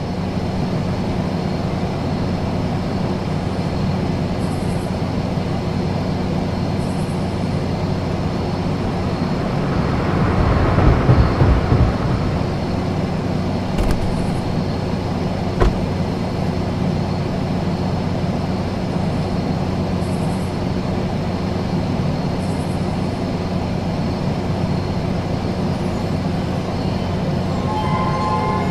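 Steady low rumble with a hum, like a moving vehicle, swelling louder about ten to twelve seconds in, with two sharp knocks a little later.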